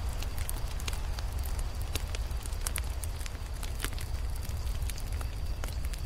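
Wood fire burning: frequent sharp crackles and pops from the burning logs over a steady low rumble of the flames.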